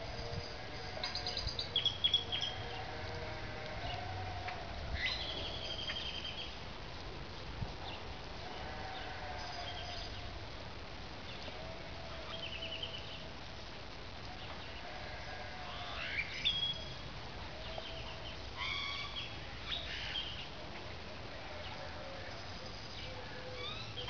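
Small birds chirping and singing in short trills and calls throughout. Sheep bleat in the background every few seconds, each call wavering and about a second long.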